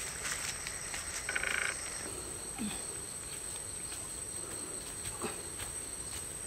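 Tropical forest ambience: a steady high-pitched insect drone, a brief buzzing call about a second and a half in, and two short low falling croaks a few seconds apart.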